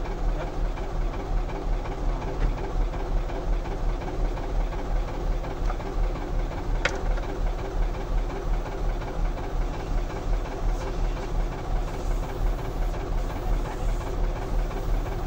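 Nissan Diesel truck's diesel engine idling with a steady, even pulsing. A single sharp click about seven seconds in.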